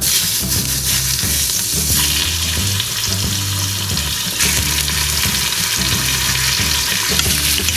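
Chunks of pork Boston butt sizzling loudly as they brown in hot oil in an Instant Pot's stainless inner pot on sauté. The sizzle grows stronger in steps about two and four and a half seconds in, as more pieces go into the pot.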